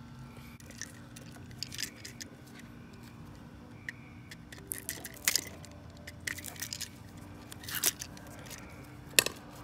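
Scattered small clicks and scrapes from handling stripped electrical wires and tools, the sharpest click about five seconds in, over a faint steady hum.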